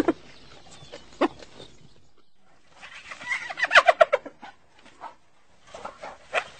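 Cartoon hyena characters cackling: a couple of short calls, then a run of rapid, bending staccato laugh notes about three seconds in, with a few fainter chuckles near the end.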